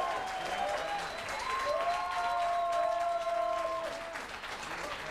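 Studio audience applauding a correct quiz answer, with a held tone that rises in pitch about a second and a half in and lasts about two seconds over the clapping.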